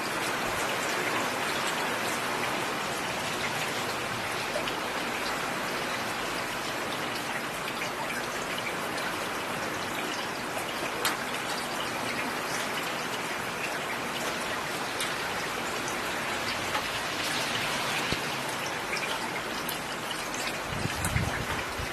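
Steady rain falling on a road, a dense even patter with scattered louder drop ticks. A brief low rumble comes in near the end.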